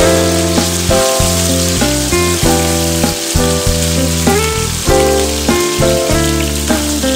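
Chicken pieces sizzling as they stir-fry in hot oil in a nonstick wok, a steady hiss, under background music with sustained notes and a bass line.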